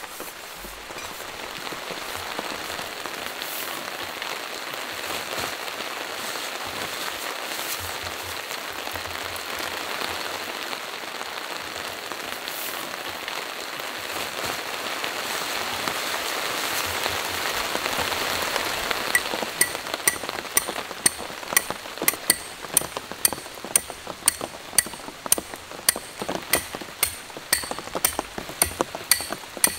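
Steady rain. About nineteen seconds in, sharp ringing blows begin, about two a second: a guyline stake being hammered into the ground.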